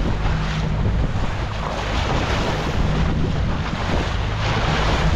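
Small fishing boat's outboard motor running steadily underway, with a low steady hum under wind on the microphone and water rushing past the hull.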